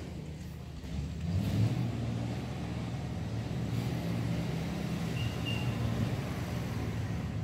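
Low steady rumble of a motor vehicle running, getting louder about a second in. Two short high-pitched chirps come a little past the middle.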